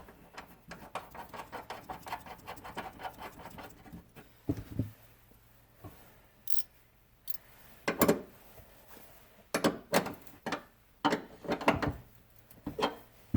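Ratchet wrench clicking in a fast, even run, about seven clicks a second, for the first few seconds as a nut is run down on the battery fitting. After that come scattered separate clinks and knocks of metal tools and parts.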